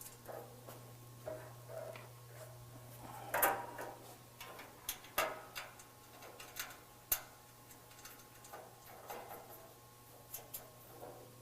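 Light metallic clicks and taps at irregular intervals as small bolts are set into a steel bumper's vent covers and turned in with a hand tool, a few sharper knocks among them, over a steady low hum.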